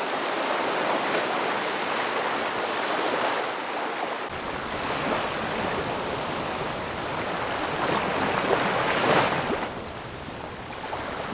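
Sea waves washing steadily on the shore, with a low rumble joining about four seconds in and one louder surge of surf a little before the end, then easing off.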